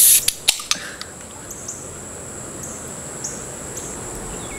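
An aluminium soda can cracked open: a sharp pop and hiss right at the start, followed by a few small clicks. After it, a steady high-pitched insect drone with occasional short chirps.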